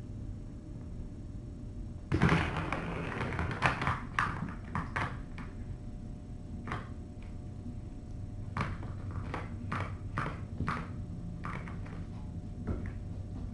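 Kittens knocking plastic toys about on a hard floor: a loud scuffling clatter about two seconds in, then scattered taps and knocks, over a low steady hum.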